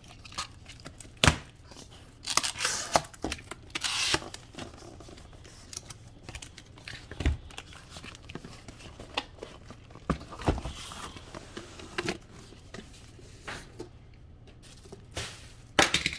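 A cardboard retail box being opened and its packaging handled: tearing, rustling and crinkling, with scattered knocks and clicks of cardboard.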